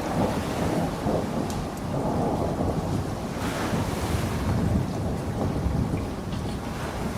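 Thunderstorm: steady rain with a low, continuous rumble of thunder, and a brief brighter surge of hiss about three and a half seconds in.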